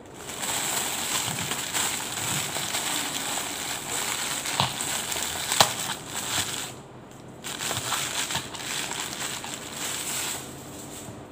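Thin plastic bag rustling and crinkling as it is pulled off a plastic takeaway bowl, with a few sharp clicks and a short lull a little past halfway.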